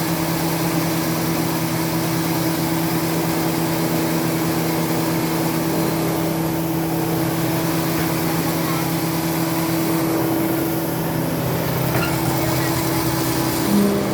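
Semi-manual tissue paper cutting machine running, a steady motor hum with a constant low tone. A brief louder blip comes near the end.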